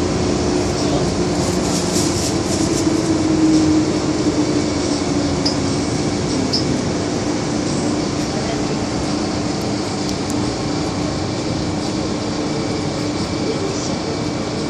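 Inside a moving MTR M-Train carriage in a tunnel: the steady running noise of wheels on rail, with a constant hum. The noise is a little louder in the first few seconds and eases slightly near the end.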